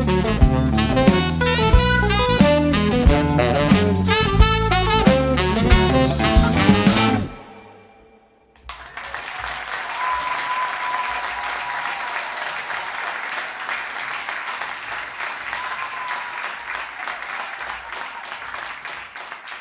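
Jazz-rock quintet of electric guitar, tenor saxophone, keyboards, bass and drum kit playing the final bars of a tune, stopping sharply about seven seconds in. After a brief pause, audience applause starts and runs on, slowly fading.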